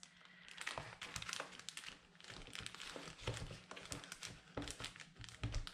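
Plastic Ziploc bag crinkling and rustling as ink pads in plastic cases are slid snugly into it, with a few soft knocks of the cases against each other.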